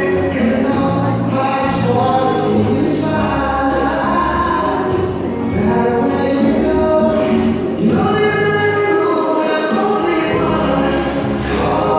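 Latin dance music with singing.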